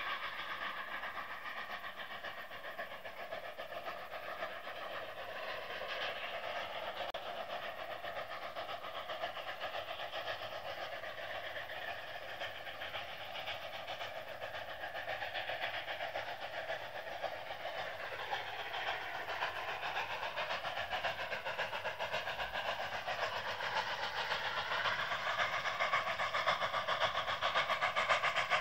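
Two narrow-gauge Mikado (2-8-2) steam locomotives, a K-37 leading a K-36, working hard on a steep upgrade with their train. Their exhaust and running gear make a steady, dense sound that grows louder as the train approaches.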